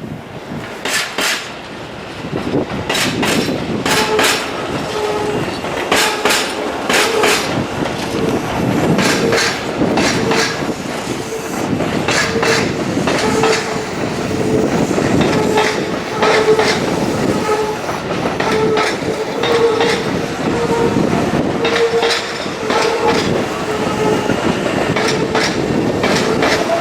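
Tobu 8000 series electric train running over jointed track and pointwork, its wheels clacking over the rail joints and crossings in irregular knocks. A short tone repeats about once a second throughout.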